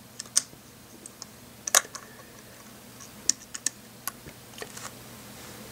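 Light, irregular plastic clicks and taps as a LEGO minifigure on a skateboard is handled and set down on a table, about a dozen in the first five seconds.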